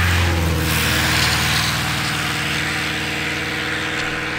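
A vehicle engine idling steadily with an even low hum under a hiss, gradually growing quieter.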